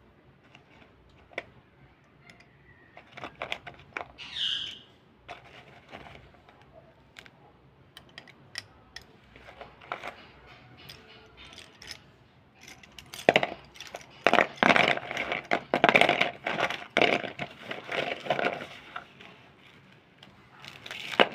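Slate pencils clicking and clinking against one another as they are handled and rubbed together. About thirteen seconds in, this gives way to a louder, dense run of dry crunching and scraping as slate pencils and slate powder are rubbed and crushed in the hand.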